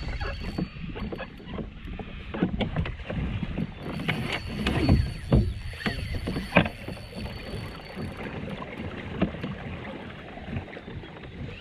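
Handling sounds aboard a fishing kayak: irregular knocks, clicks and water movement against the hull, with several sharp knocks between about four and seven seconds in. A faint steady high whine sits underneath throughout.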